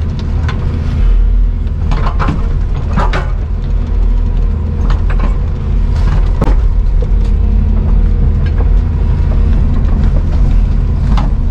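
A heavy work machine's engine running steadily, with sharp cracks of wood splintering several times.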